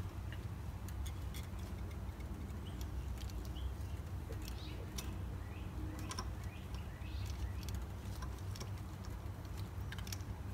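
Scattered light clicks and taps of a CV joint's steel cage, inner race and balls shifting against the outer race as they are worked by hand, over a steady low hum.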